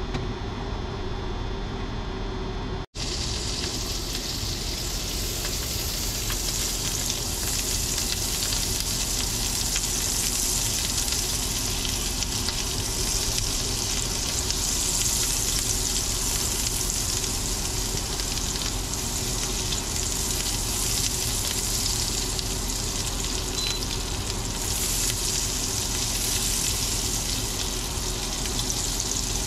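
Garlic butter sizzling and frying in a stainless steel pan, pushed around with tongs. It starts suddenly about three seconds in, after a steady hum with a few faint tones.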